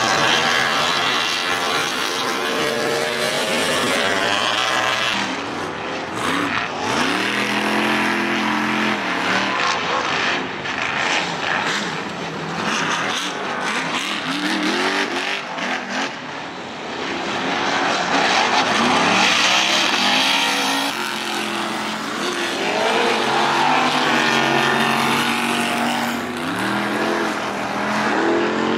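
Several Ultra4 off-road race cars' engines revving hard, pitch climbing again and again every few seconds as they accelerate, over a steady noise of engines and tyres on dirt.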